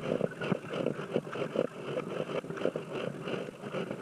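Water splashing and lapping against a plastic sit-on-top kayak hull as it is paddled, a stream of short, irregular splashes.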